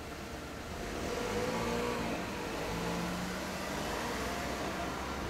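Street traffic, with a car engine passing by that swells and fades about a second in.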